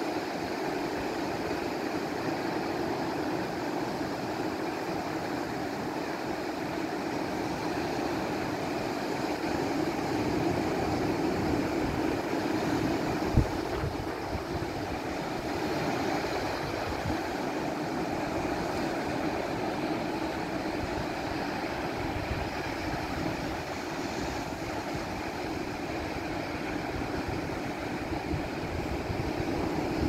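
Pacific surf breaking and washing up a flat sand beach: a steady rush of waves. Wind buffets the microphone with low rumbles and one short knock just under halfway through.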